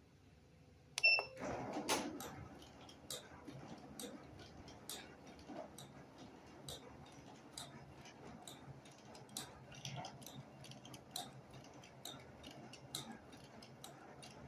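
Embroidery machine starting up after a short beep about a second in, then its main shaft running with a low hum and sharp ticking clicks about once a second during a speed test.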